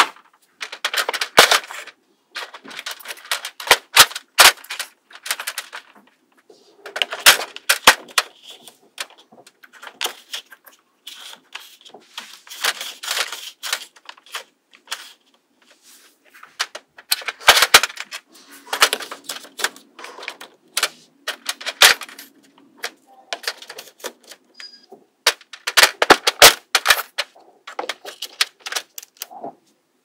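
Sharp clicks and clacks of wooden game pieces (paddles on dowel pins, painted plates) being set and pressed onto a board built of small magnetic balls. The clicks come in irregular rapid clusters with short pauses between them.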